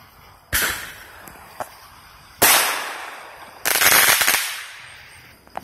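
Consumer fireworks bursting in the sky: three sharp reports about a second and a half apart, each fading away over about a second.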